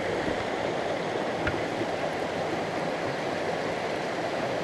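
Small mountain stream running over rocks: a steady, even rush of flowing water.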